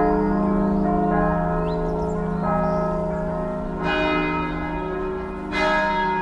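Church bells ringing, several bells sounding together with long, overlapping tones, with fresh strikes about four and five and a half seconds in, opening a recorded piece of religious music.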